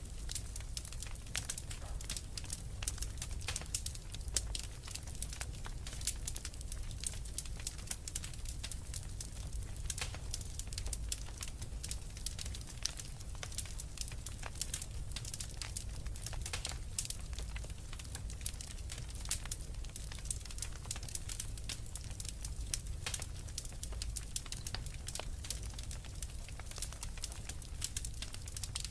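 Fireplace fire crackling: a dense, irregular run of sharp snaps and pops over a low, steady rumble.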